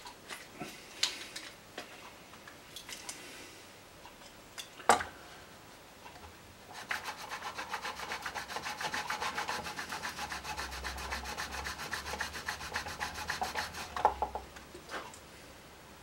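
A chanter reed's blade rubbed back and forth on the sandpaper of a curved sanding table in rapid, even strokes for about seven seconds, thinning it toward the point where it crows. Before the sanding there are light handling clicks and one sharp knock about five seconds in.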